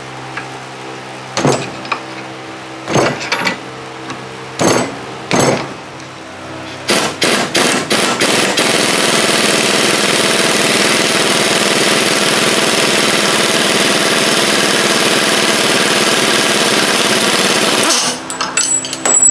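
A few sharp metal knocks, then an impact wrench stutters and hammers steadily for about ten seconds before stopping. It is driving a gear puller's screw to pull the bearing off a Kuhn GMD500 disc mower spindle shaft.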